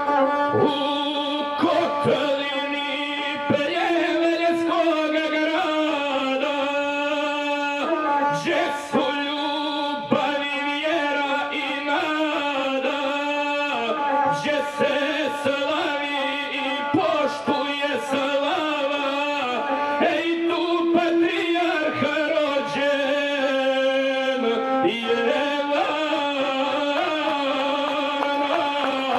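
A male guslar singing epic verse while accompanying himself on the gusle, a one-string bowed folk fiddle. The voice and the bowed string run on without a break, over a steady held note.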